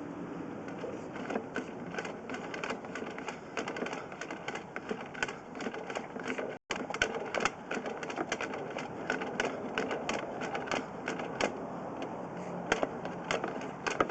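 Sewer inspection camera and its push cable being fed through a sewer pipe, making irregular rapid clicking and clattering over a steady noise. The sound cuts out for an instant about halfway through.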